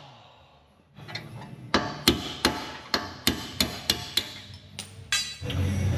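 Hammer blows on metal, about ten sharp ringing strikes roughly three a second, struck while freeing the front wishbone of a Nissan Juke. A short noisy burst and a steady low hum follow near the end.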